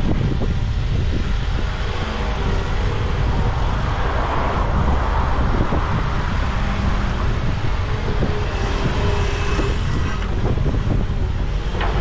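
Volvo EWR150E wheeled excavator's diesel engine running steadily, with a continuous low rumble.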